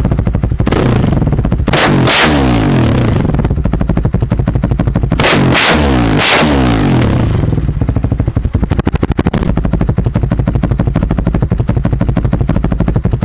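2017 Husqvarna FE501's single-cylinder four-stroke engine running through an FMF 4.1 exhaust, revved twice with quick throttle blips that rise and fall, then settling back to a steady, thumping idle.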